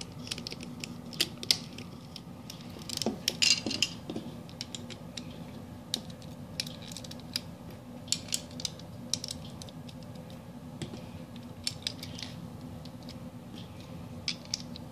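Lego pieces clicking and clattering as they are handled and pressed together: scattered sharp plastic clicks, with a quick cluster about three seconds in.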